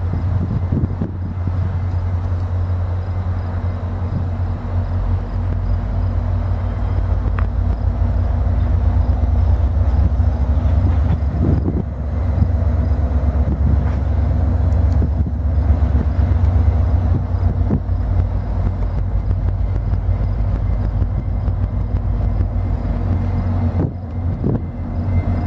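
VIA Rail passenger train's diesel locomotive working as it pulls out and draws closer, a steady low rumble with a faint engine drone.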